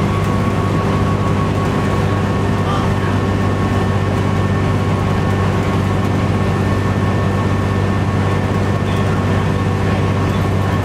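1998 New Flyer D40LF transit bus running on its Cummins ISC six-cylinder diesel, holding a steady engine speed: a constant low drone with a thin steady whine on top.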